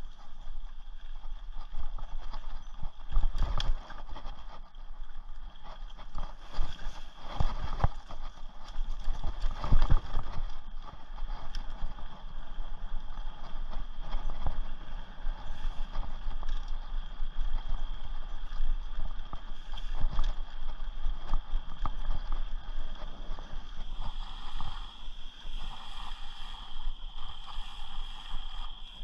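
Rocky Mountain Thunderbolt mountain bike rolling over a bumpy dirt trail and then across wooden boardwalk planks: the tyres and frame rattle and knock, with a few hard jolts in the first ten seconds. A steady high insect drone runs underneath.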